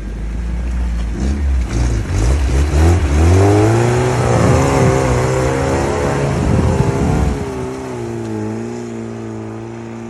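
All-terrain vehicle engine running low, then revving up about a second in and held at high revs with a wavering pitch, dropping back to a lower steady note after about seven seconds.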